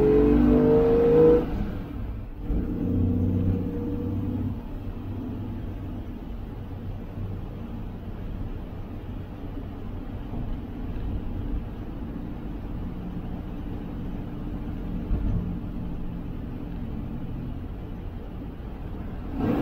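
1966 Dodge A100's slant-six engine heard inside the cab, revving up under acceleration, dropping off about two seconds in for a gear change on the column shift, then pulling again and settling into a steady drone at cruise.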